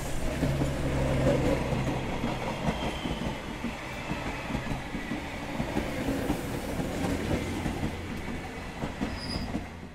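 Train running along the track through a rail yard: a steady low rumble of the locomotive and wheels on rails, with a brief high tone near the end before it fades out.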